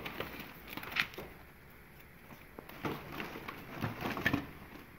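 Handling noises: rustling and a few light knocks as items are lifted out of a box of old books and prints.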